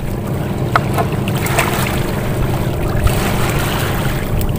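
A knife scraping scales off small fish on a wooden board, giving a few light scrapes and clicks, over a steady low outdoor rumble of wind and sea.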